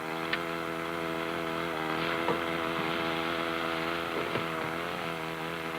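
Small gasoline engine running steadily at a constant speed, likely the power unit that drives Hurst hydraulic rescue jaws. It cuts off suddenly at the end.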